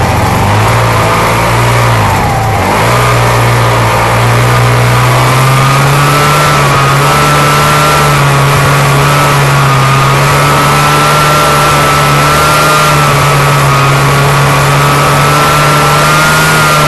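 Snowmobile engine running as the sled travels along a trail, heard close up from on board. About two seconds in the engine note dips briefly and comes back up, then holds steady and creeps slightly higher near the end.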